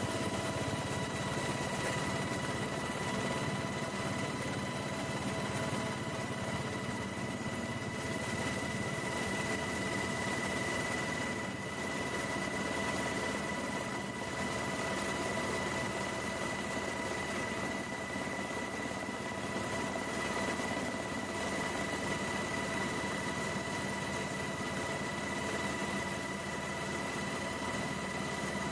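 Steady aircraft engine noise heard from aboard the aircraft, a constant drone with a fixed high whine that holds throughout.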